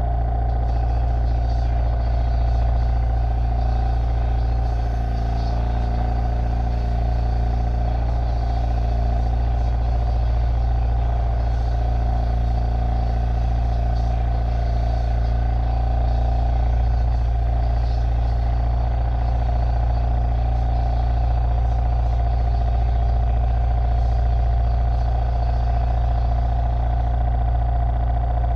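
Steady, loud machine drone with a deep hum and a held higher tone, running unchanged throughout.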